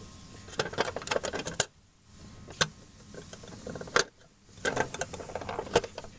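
Sliding door of a Lionel toy boxcar being worked back and forth by hand: a series of small clicks and rattles, with two single sharp clicks in the middle.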